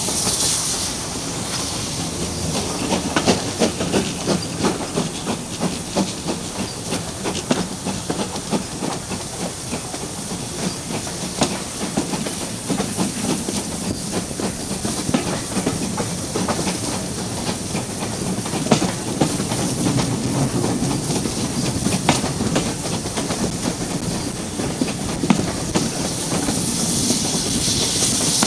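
Steam-hauled passenger train running, heard from a carriage window: the wheels click and clatter over the rail joints under a steady rushing noise.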